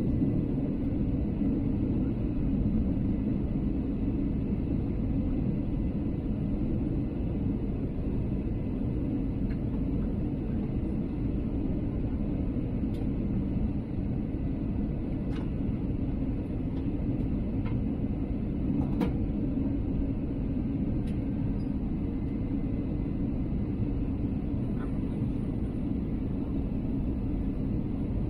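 Steady low cabin rumble of an Airbus A320neo airliner, with its Pratt & Whitney geared turbofan engines and the airflow, on descent for landing. A few faint clicks come through midway.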